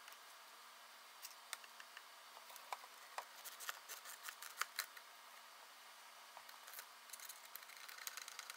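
Faint, irregular clicks and light taps of metal parts being handled, as a dust hood is fitted into place under a belt grinder's steel tool rest.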